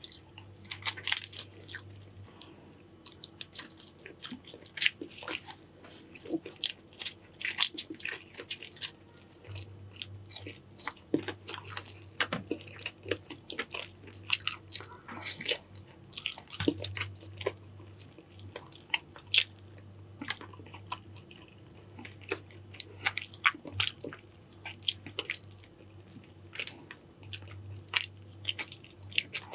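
A person eating a seafood boil close to the microphone: biting and chewing, with many sharp, irregular clicks and cracks throughout.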